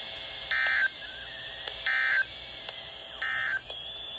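Emergency Alert System end-of-message data bursts from a NOAA Weather Radio broadcast: three short, harsh digital buzzes about 1.3 seconds apart, over steady radio hiss. They mark the end of the special marine warning.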